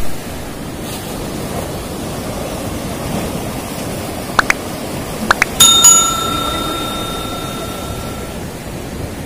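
Subscribe-button sound effect: two pairs of quick mouse clicks, then a bell ding that rings out and fades over about three seconds, over steady sea surf.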